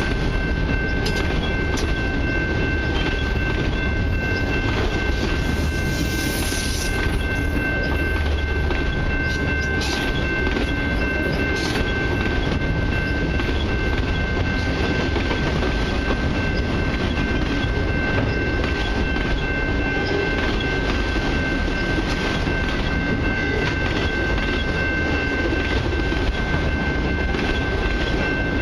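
Freight train of enclosed autorack cars rolling past, with a steady rumble and steel wheels clicking over the rail joints, and now and then a clank. A few thin, steady high tones sit over the noise.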